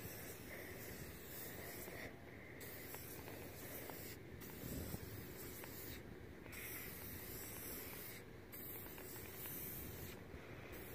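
Aerosol can of white spray paint hissing as it is sprayed onto a steel drum, in bursts of about two seconds with short breaks between them.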